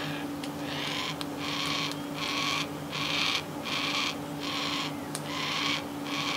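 Young yellow-tailed black cockatoo begging for food: a harsh, rasping call repeated over and over, about one every half second, starting about a second in.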